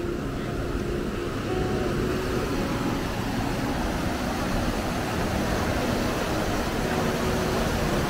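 City street ambience: a steady rushing noise that swells slightly about a second and a half in, with faint held notes of music underneath.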